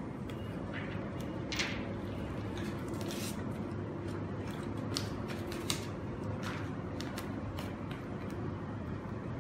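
Hands handling adhesive foam pads and their paper backing: scattered light rustles and clicks, over a steady low room hum.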